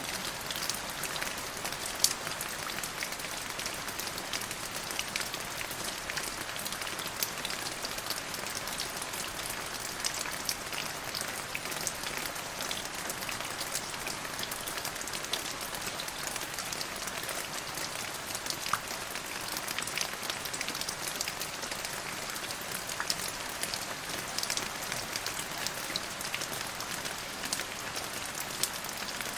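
Steady rain falling: a dense, even patter with many individual drops ticking sharply through it.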